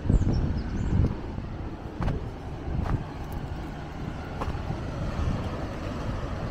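Wind rumbling against the microphone, with footsteps on the trail about once a second.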